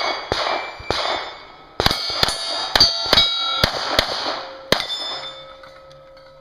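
A handgun fired at steel targets: a fast string of about nine shots starting about two seconds in, with the struck steel plates ringing after the hits. A couple of separate bangs come in the first second.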